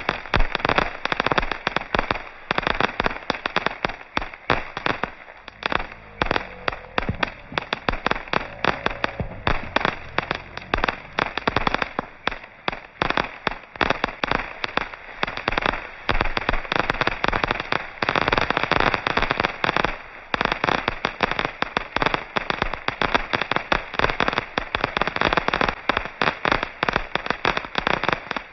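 Fireworks going off in a dense barrage: many bangs and crackles every second, with no let-up.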